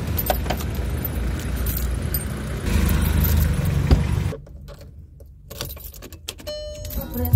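Keys jangling and clicking in a car door lock as the door is unlocked and opened, over steady street rumble. About four seconds in there is a thump, and the outside noise drops away. Then the keys click toward the ignition, a short electronic chime sounds, and a loud click comes at the very end.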